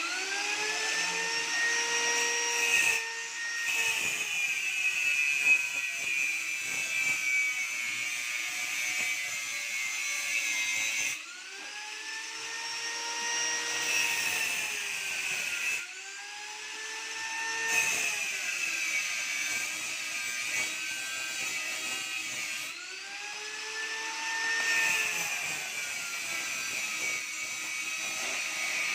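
A high-speed electric motor whining, its pitch rising, holding and sagging over and over as its load changes. It drops away and spins back up about three times.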